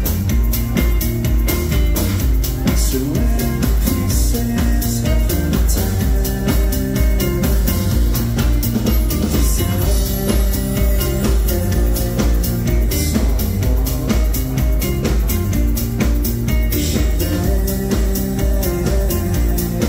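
Live electronic dance music played loud through a venue's PA: a steady driving beat with heavy bass and keyboard chords, with a male vocalist singing over it.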